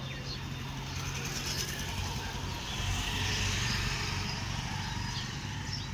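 A motor vehicle passing on the road, swelling to its loudest around the middle and fading again, over a steady low hum.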